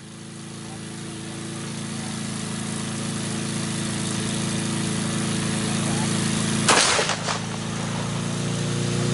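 Small engine of a cheap push lawn mower running steadily on its own. About two-thirds of the way in, a single .44 Magnum revolver shot (Ruger Super Redhawk, 240-grain flat-nose) cracks out with a short echo. The engine keeps running after the hit and speeds up.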